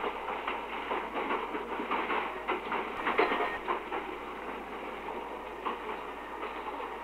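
RTM tram running along its track, its wheels clattering irregularly over rail joints and points over a steady rolling rumble.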